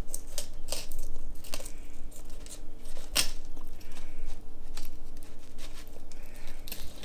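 Fillet knife slicing along the side of a striped bass, its blade rasping through scales and skin in a run of short, sharp scraping strokes.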